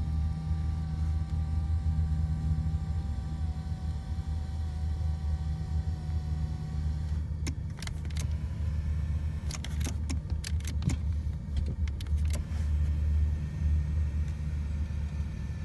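Car's electric power-seat motor whining steadily as the driver's seat is moved, stopping about seven seconds in; then a run of sharp clicks and taps as the seat switches are worked. A steady low rumble sits underneath throughout.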